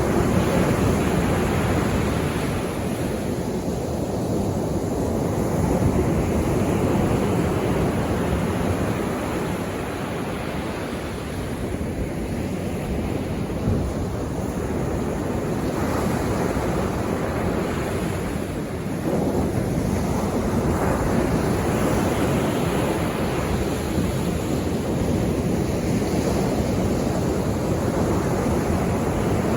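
Sea waves breaking and washing on the shore, the surf swelling and fading every several seconds, with some wind on the microphone.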